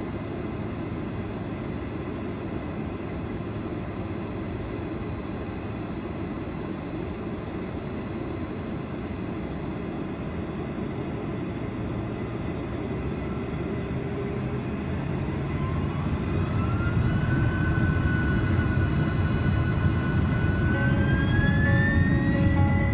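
Jet airliner's engines heard from the cabin: a steady low rumble, then about two-thirds of the way through the engines spool up for takeoff, with a rising whine that climbs in steps and the rumble growing louder.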